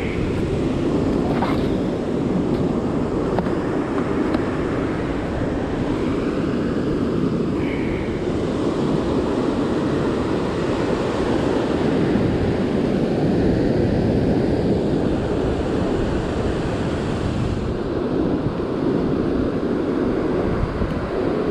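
Steady surf breaking on a beach, mixed with wind rumbling on the microphone.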